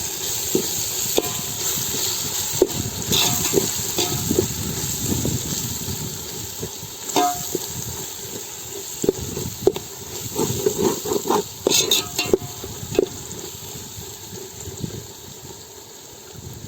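Ladle stirring and scraping spiced masala in a cooking pot while it sizzles, with scattered clicks of metal on metal over a steady hiss.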